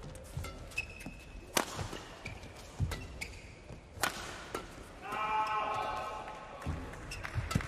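Badminton rally sounds on an indoor court: two sharp racket strikes on the shuttlecock, a couple of seconds apart, and short squeaks of court shoes. About five seconds in comes a longer pitched squeal or cry lasting over a second.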